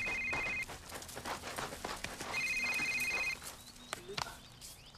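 Telephone ringing with a trilling electronic ring, about one second on and a second and a half off: the tail of one ring, a full ring about halfway, and the next ring starting at the end. Soft scattered knocks fall between the rings.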